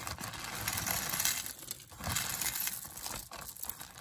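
A bag crinkling and rustling while a handful of mixed costume jewelry is pulled out of it, with small clinks of beads and metal pieces.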